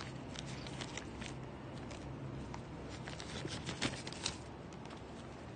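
Handling noise from desoldering pumps in plastic packaging being moved and set down on a glass counter: scattered light clicks and crinkles, with two louder knocks around four seconds in, over a low steady hum.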